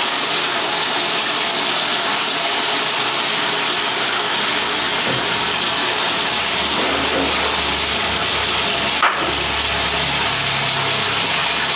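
Steady rush of running water, with a single sharp click about nine seconds in.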